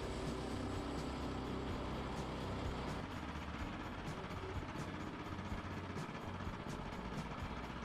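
Woodland Mills HM122 portable band sawmill's gasoline engine running. It starts as a steady drone, turns rougher about three seconds in, and a regular light clicking runs through it.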